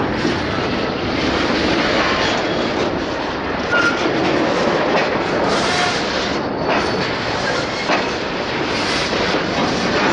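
Freight train wagons rolling on the track: a steady rumble and rattle, with wheels clattering over the rails and a couple of louder clanks, about four seconds in and near eight seconds.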